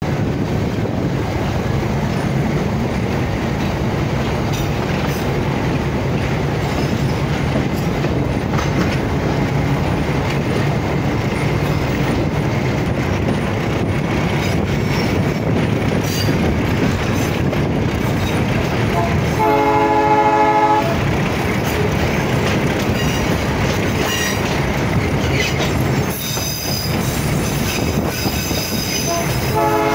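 A passenger train hauled by an Alco RS8 diesel locomotive, heard from aboard: a steady rumble and rattle of the train running on the rails. About two-thirds of the way in, the locomotive's horn sounds once for about a second and a half, and a shorter horn blast comes right at the end. A thin high squeal from the wheels joins in near the end.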